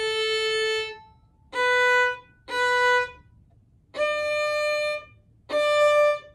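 Solo violin playing slow, separately bowed notes: a long open A, two short notes a step higher on the first finger (B), a long D with the third finger, then a short D just at the end.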